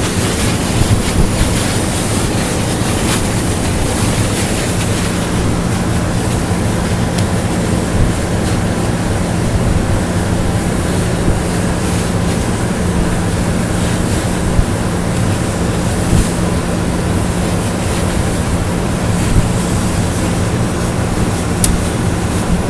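CNC plasma cutter's torch cutting steel plate: a loud, steady hiss of the arc and gas jet, with a steady low hum underneath and a few faint crackles.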